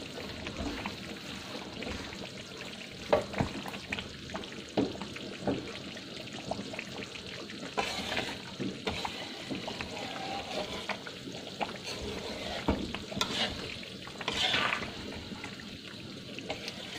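Rendang, beef in a thick coconut-milk sauce, sizzling and bubbling in a wok as it cooks down. A spatula stirs through it, giving scattered scrapes and knocks against the pan, a few of them louder.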